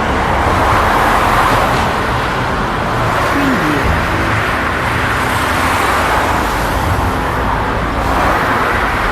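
Busy city road traffic: a steady wash of cars and trucks passing, with vehicles swelling past about a second in and again near the end.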